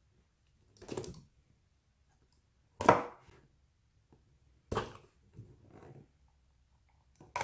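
Utility knife slicing through the clear tape seals on a cardboard box, in several short strokes a second or two apart.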